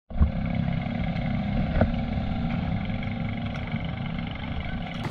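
Small engine of an outrigger boat running steadily at an even speed, with one brief knock about two seconds in.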